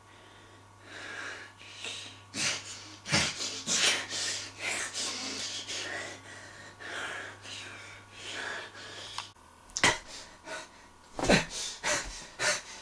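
A person making a rapid run of short breathy, hissing mouth and nose noises, with a few sharper, louder bursts near the end.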